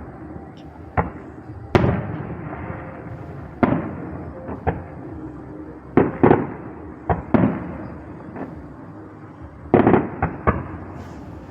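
Aerial fireworks bursting: about a dozen sharp bangs at irregular intervals, each trailing off in a rumbling echo, with a quick run of bangs near the end.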